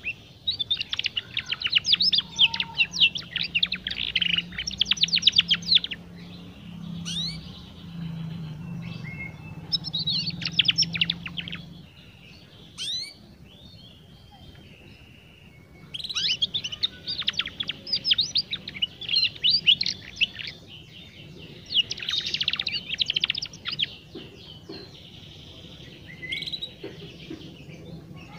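Young domestic canary singing its practice song (ngeriwik), in bursts of fast, high twittering trills with short pauses between them: the rambling subsong of a juvenile still learning to sing.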